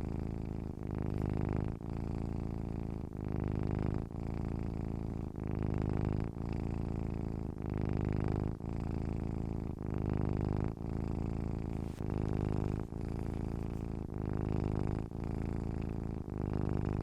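Domestic cat purring steadily, a low rumble that pauses briefly about once a second as the purr switches between breathing in and breathing out.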